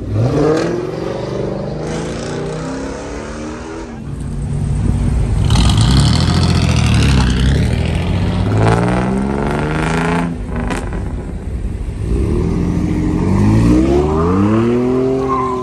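Car engine revved hard again and again for a burnout, its pitch climbing and falling several times, with a long climb near the end.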